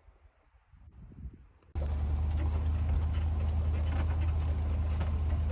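Faint, quiet outdoor ambience, then an abrupt cut a little under two seconds in to an off-road 4x4 vehicle driving, with a loud, steady low drone of engine and road noise.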